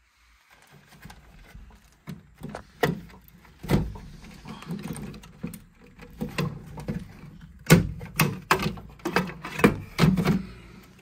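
Hands working inside a washing machine's back, taking out the motor control board's plastic casing: irregular plastic clicks, rattles and knocks, with several sharp knocks, the loudest about eight seconds in.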